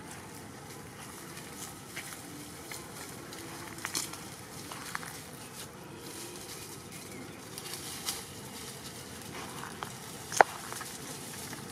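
Dry leaf litter rustling with scattered light clicks and crackles as macaques move over the forest floor, and one sharp snap near the end.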